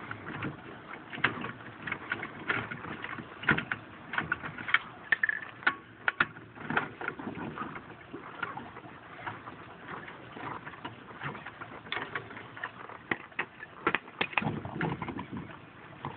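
Irregular metallic clicks and knocks of a four-way lug wrench on a car wheel's lug nuts as they are unscrewed.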